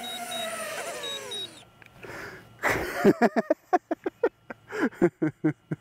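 DJI Avata 2's motors and ducted propellers spinning down after landing: the whine slides down in pitch and stops about a second and a half in, with a rapidly pulsing high beep over it until then. Then, from about three seconds in, comes a louder quick run of short chirping clicks.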